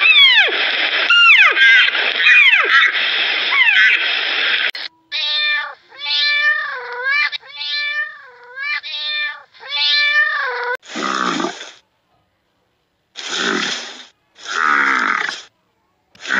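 Kittens meowing: five high meows in a row. Before them comes a steady hiss laced with quick falling whistles, and after them three short, harsh animal calls with gaps between.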